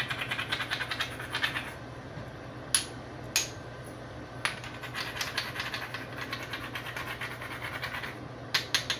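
Hand salt and pepper grinders being twisted: a fast, even clicking of the grinding mechanism in two stretches, with a few sharp knocks in between.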